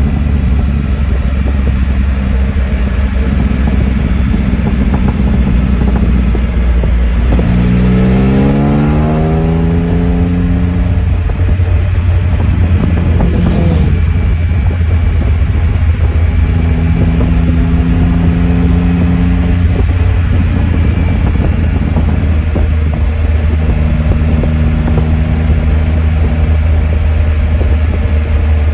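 Can-Am Spyder F3's Rotax 1330 inline three-cylinder engine running loud under way, heard from the rider's seat. About seven seconds in it revs up in a rising climb, then holds a steady engine speed, with later stretches of steady pulling.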